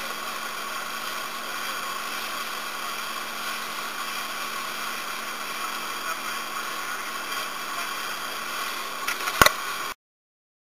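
A motorboat under way, its engine running with a steady hum and rushing noise. A couple of sharp knocks near the end, then the sound cuts off abruptly.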